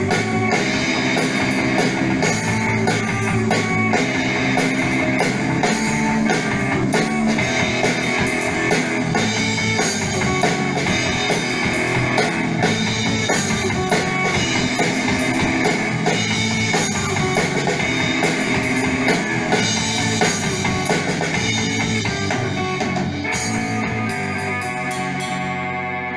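Rock music with electric guitar and a drum kit, fading out near the end.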